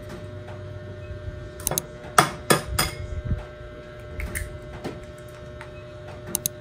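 Eggshells knocked against the rim of a ceramic bowl and cracked open: a series of sharp knocks, the loudest two or three coming between about two and three seconds in, with a few lighter taps later. A steady hum runs underneath.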